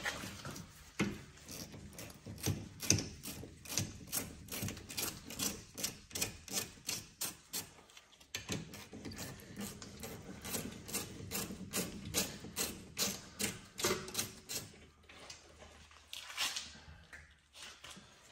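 Ratchet wrench clicking in quick runs, about three clicks a second, as the rear brake caliper bracket bolts are backed out. There is a short break about eight seconds in, and the clicking thins out near the end.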